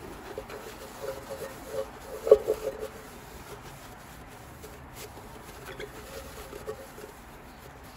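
Paper towel rubbing against a stainless steel pot, giving runs of short squeaks, the loudest about two seconds in.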